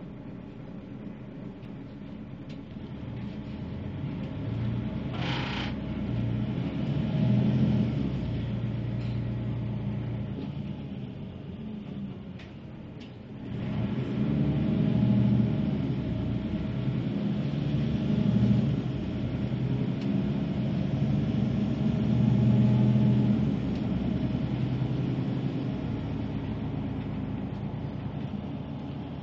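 City bus engine pulling away and accelerating, climbing in pitch in repeated surges as it shifts up, easing off about twelve seconds in and then pulling hard again. A short hiss of air comes about five seconds in.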